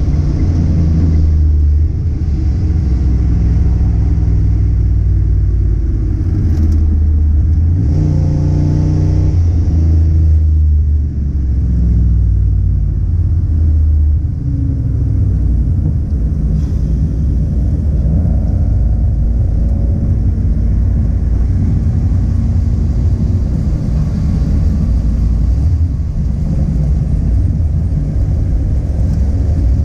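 A loud car engine running under load, its pitch repeatedly rising and dropping as it accelerates and eases off, over a low rumble throughout.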